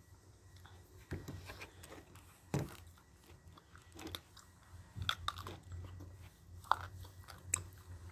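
A person chewing and crunching food, with irregular crisp bites and crunches, some louder than others.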